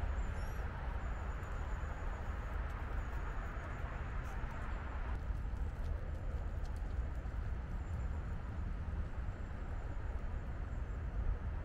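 Steady outdoor background noise with a low rumble and a few faint high chirps.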